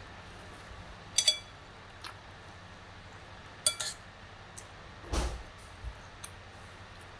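Cutlery clinking against a dish: a short ringing clink about a second in and another near four seconds, then a duller knock about five seconds in.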